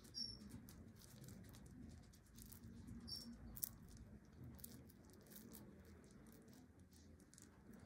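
Faint, irregular sticky clicks and soft pats of wet hands pressing and turning a ball of cooked rice into a triangular onigiri, over a low room hum.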